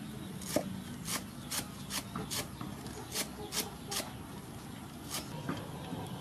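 Cleaver chopping green onions on a wooden cutting board: about nine sharp knocks, two to three a second, stopping near the end.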